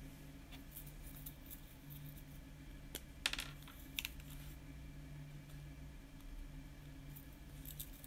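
Light plastic clicks and handling noise from a Staedtler mechanical pencil and its plastic lead-refill tube being handled, with a short cluster of sharp clicks a little past three seconds and another sharp click at about four seconds, over a faint low hum.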